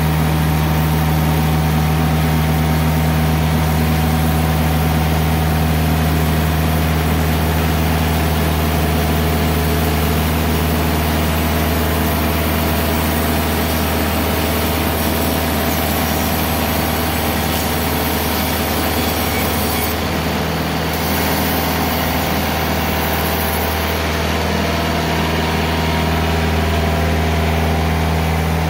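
TimberKing 2020 portable bandsaw mill running steadily, its engine and Kenne-SAW band blade sawing a slab off a log. About twenty seconds in, the higher part of the sound shifts while the engine runs on.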